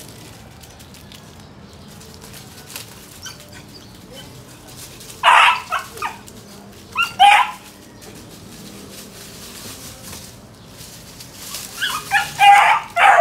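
Beagle puppy barking in short, high yips: two barks around the middle and a quick run of barks near the end, with dry leaves rustling underfoot in between.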